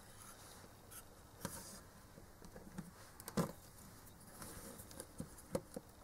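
Faint handling noises as a hard-drive circuit board is moved and set down on a work mat: a few small clicks and taps with light rustling, the loudest tap a little past the middle.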